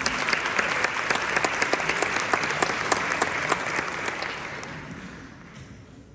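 Small audience applauding: many separate hand claps together, dying away over the last two seconds.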